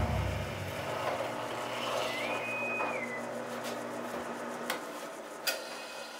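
Benchtop drill press motor running steadily, its bit spinning freely just after boring through a wooden handle. A brief high whine rises and falls about two seconds in, and a couple of light clicks come near the end.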